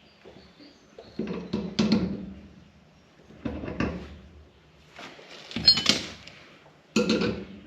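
Four short bouts of clattering and knocking from hand tools being handled, with a brief metallic ring a little after the middle: someone rummaging through tools looking for pliers.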